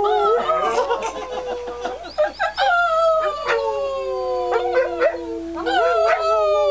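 Dog howling: long drawn-out howls that slide slowly down in pitch, one ending about five seconds in and a new one starting soon after.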